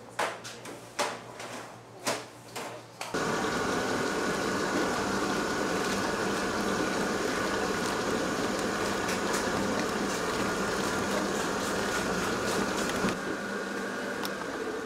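A few sharp knocks, then a small electric motor starts abruptly about three seconds in and runs steadily with a faint whine, easing slightly in level near the end.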